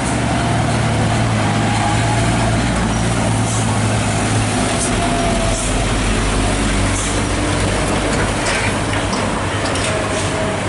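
Heavy truck engine running steadily with a low drone, along with road noise.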